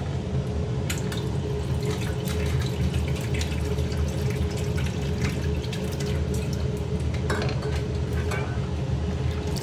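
Water poured in a steady, continuous stream into a stainless steel pot of cut vegetables, over a low steady hum.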